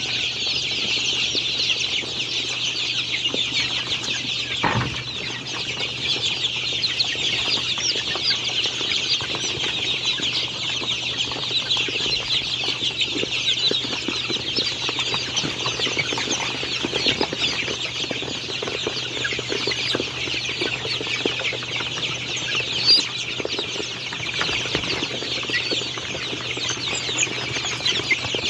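A crowded flock of young chickens peeping and cheeping without a break, a dense high-pitched din of many overlapping calls.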